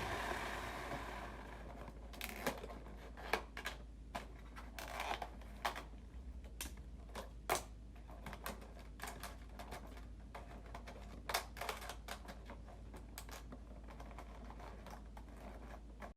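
Quiet, irregular clicks and ticks of a boxed toy's plastic and cardboard packaging being handled and opened, beginning with a short crinkling hiss.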